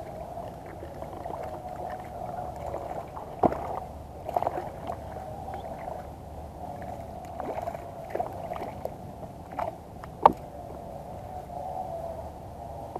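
Water splashing and lapping as a hooked fish thrashes at the surface beside a float tube, with scattered sharp knocks, the loudest about ten seconds in, over a steady hum.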